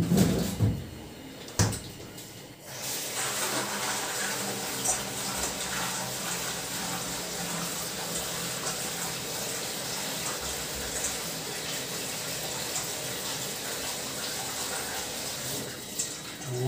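Kitchen tap running steadily, water rinsing the shop-bought cabbage in the sink; it comes on about three seconds in and stops near the end. A single knock comes shortly before the water starts.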